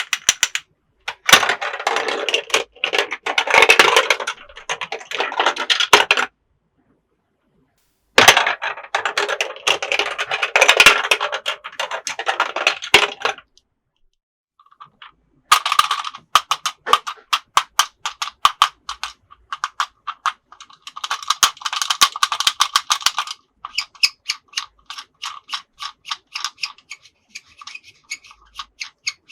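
Small hard plastic toy parts clicking and rattling rapidly, in several bursts of a few seconds separated by short silences, the later part a run of distinct quick clicks.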